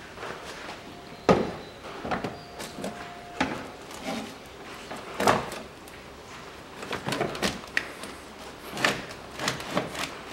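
Car battery being set into its tray in the engine bay and handled: a series of irregular knocks, clunks and rattles, the loudest about a second in.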